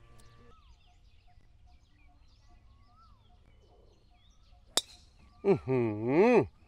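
Golf club striking the ball on a tee shot: one sharp crack about five seconds in. It is followed at once by a person's drawn-out vocal exclamation that rises and falls in pitch, the loudest sound here. Faint bird chirps before the shot.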